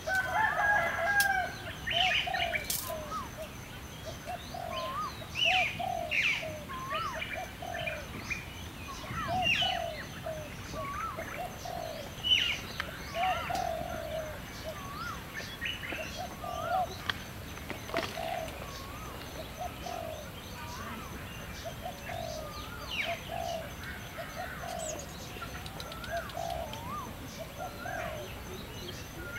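Birds calling: short low calls repeated in twos and threes, with higher rising chirps above them. Underneath is a faint, high, rapidly pulsing tone.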